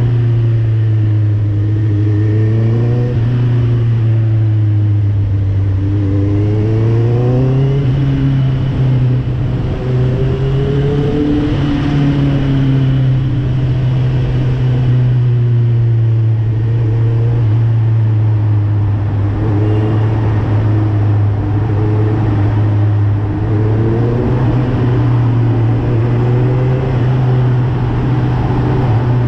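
Motorcycle fitted with an Akrapovic aftermarket exhaust, ridden in traffic. The engine note rises and falls with the throttle several times.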